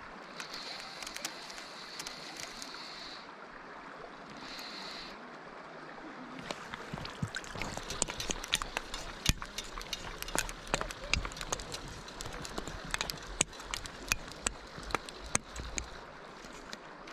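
Steady rush of river water, with a run of irregular sharp clicks and knocks starting about six seconds in, as a fly rod, reel and landing net are handled while playing a hooked trout.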